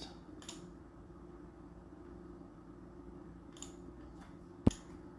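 Quiet room tone with a low steady hum, a few faint clicks, and one sharp click about four and a half seconds in.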